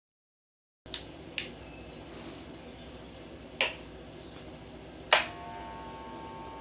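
Four sharp plastic clicks from a Wahl hair clipper being handled, the loudest near the end, followed by a faint steady hum.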